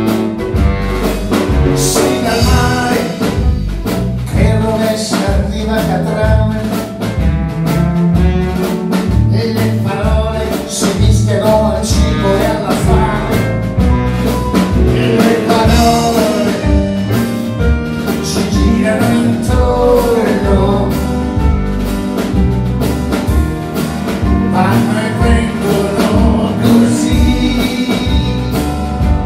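Small band playing live: a passage without sung words over a steady beat, with keyboards and melodic lines.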